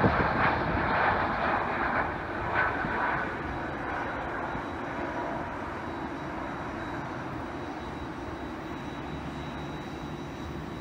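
Airbus A330 airliner's jet engines fading away after it passes low on landing. The sound settles into a steady distant roar as the aircraft rolls out along the runway.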